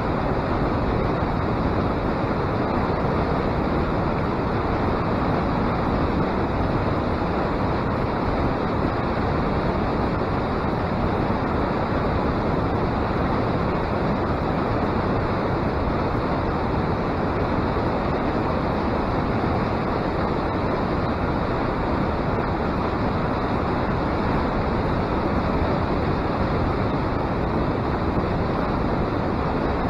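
Fast-flowing, foaming river water rushing steadily, an even unbroken noise.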